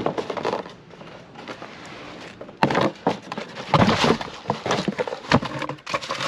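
Cardboard box and bubble-wrap packaging being handled: rustling and crinkling with many sharp crackles, getting louder and busier about two and a half seconds in.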